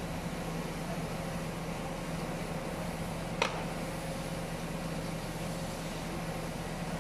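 Steady hum of running machinery with a low drone, and one sharp knock about halfway through.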